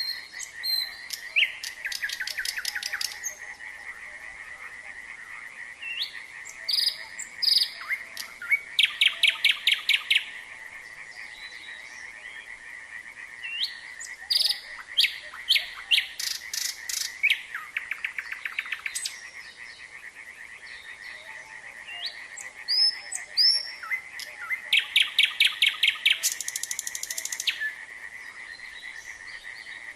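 Nightingale singing in separate loud phrases of rapidly repeated notes, rattles and whistles, about four phrases, over a continuous chorus of frogs calling.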